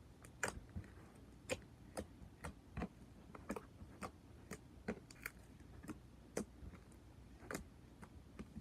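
Clicky slime being kneaded and mixed by hand with putty, giving faint, irregular sharp clicks and pops, about one or two a second.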